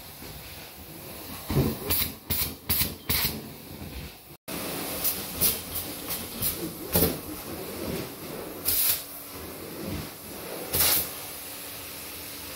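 Hot water extraction wand sucking across carpet: a steady suction hiss broken by a string of short, loud hissing bursts as the wand is stroked back and forth. The sound drops out for a moment about four seconds in.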